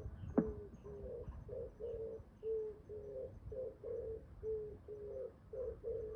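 Outdoor animal calls: a rapid, even run of short low calls, about three a second, with faint high chirping above them. One sharp click sounds about half a second in.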